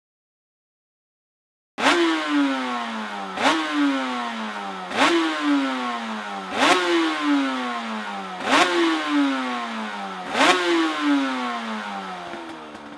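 Two-stroke racing motorcycle engine revved hard six times at a steady interval. Each time the revs snap up sharply and fall away over about a second and a half. It starts about two seconds in and fades near the end.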